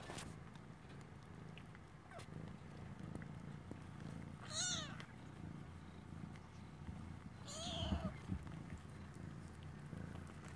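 Kittens mewing: two short high calls about four and a half and seven and a half seconds in, each bending in pitch, over a faint, steady low purr.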